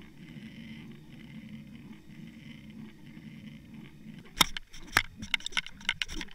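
Underwater recording off a trolled fishing line: a steady low rush of water, then from about four seconds in a run of sharp clicks and knocks.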